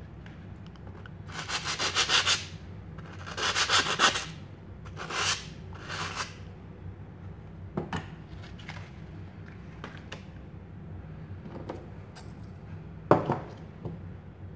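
Four bouts of quick abrasive hand rubbing, each a second or less, as a hand tool thins the material. Then a few light ticks, and a sharp knock about thirteen seconds in.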